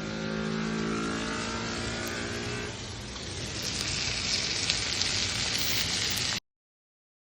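A boat engine running at a steady speed, then a rushing hiss takes over about three seconds in; the sound cuts off abruptly near the end.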